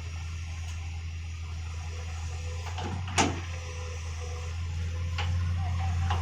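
Excavator engine running with a steady low drone, broken by a few sharp metallic clanks; the loudest comes about three seconds in, and the engine grows slightly louder near the end.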